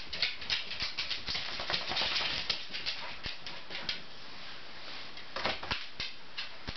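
A dog licking and nuzzling at a seated person's face: quick, irregular wet clicks with rustling of fur and clothing, thickening briefly a little after five seconds in.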